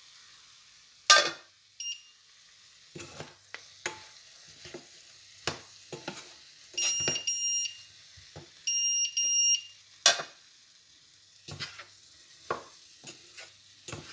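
Okra sabzi sizzling faintly in a non-stick pot while a wooden spatula stirs it and knocks against the pot, with a steel lid clanking about a second in. Two long electronic beeps sound in the middle, from the induction hob.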